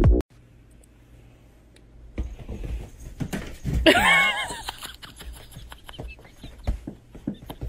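Background music cuts off right at the start. Then come soft taps and rustles, and about four seconds in a ginger cat gives one drawn-out meow that wavers and then falls in pitch.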